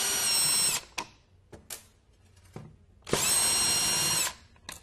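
Cordless drill/driver backing out the mounting screws of a wall light switch: two steady motor whines about a second long each, the first stopping under a second in and the second starting about three seconds in, with a few light clicks between.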